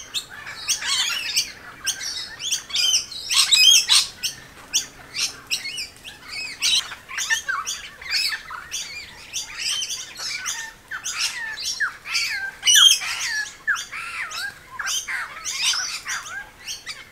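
A flock of lorikeets and other parrots calling non-stop, many short shrill calls overlapping into a constant ruckus, the birds feeding in a flowering tree.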